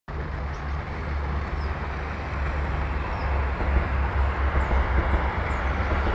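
O gauge model trains running on a garden railway: a steady whirring rumble of wheels and motors on the track, getting a little louder about halfway through.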